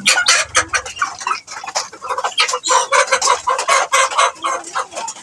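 Domestic chickens clucking, a quick run of short calls one after another.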